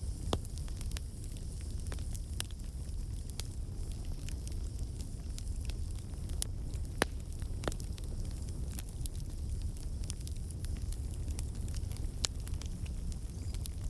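Campfire burning steadily, with a low rumble of flame and irregular crackles and pops of burning wood, a couple of sharper pops among them.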